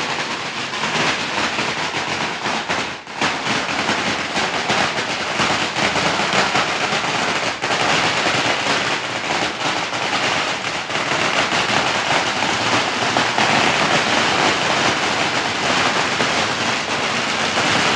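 A string of firecrackers going off in a long, dense, continuous crackle of rapid bangs, with a brief dip about three seconds in.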